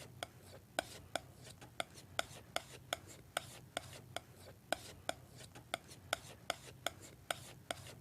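Palette knife mixing oil paint on a palette: sharp metallic taps and smacks of the blade against the paint and palette, about two to three a second, with a soft scraping between them.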